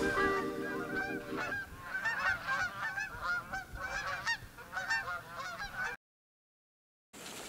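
A flock of geese honking in flight, many short overlapping honks that cut off suddenly about six seconds in.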